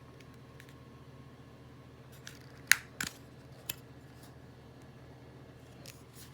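Drone battery and its packaging being handled: a few light clicks and taps of hard plastic, the sharpest a little under halfway through, over a steady low hum.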